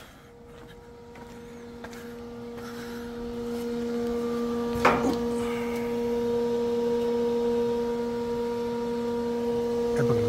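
Steady machine hum from a solar tubewell pump set: a low tone with a second tone an octave above. It grows louder over the first few seconds and then holds steady, with a single knock about five seconds in.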